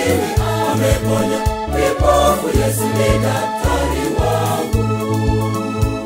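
Swahili gospel song: a choir singing over a band with a steady, pulsing bass line.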